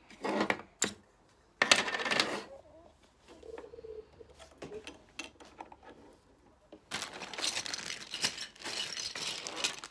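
Small Playmobil plastic pieces clicking and rattling as they are handled and set into a plastic dollhouse, with a longer run of plastic rustling over the last few seconds.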